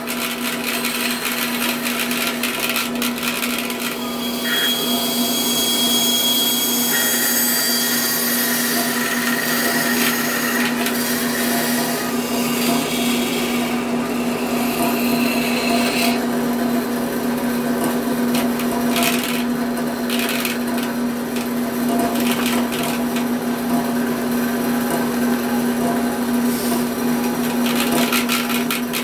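Bandsaw running with a steady motor hum, and a higher sawing noise that grows and fades as it cuts.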